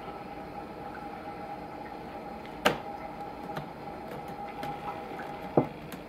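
Two sharp knocks about three seconds apart as a baby slaps a laptop's keyboard, over a steady hum.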